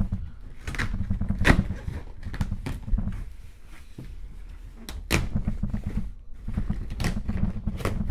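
Cardboard box being handled: low rubbing and scraping broken by several sharp taps and knocks.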